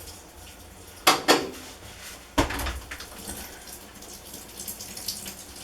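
Two sharp clicks close together about a second in, then a single heavier knock about a second later, as the washing machine is being shut off.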